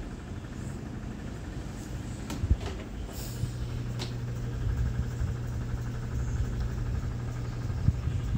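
Built-in electric oven door pulled open about two and a half seconds in, with a knock and a few clicks, over the steady low hum of the running oven, which grows louder once the door is open.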